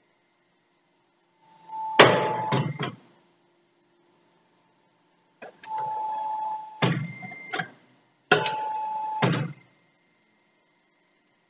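Hydraulic briquetting press working through three cycles. Each cycle is a short steady whine, followed by two or three sharp metallic clunks; the loudest clunk comes about two seconds in.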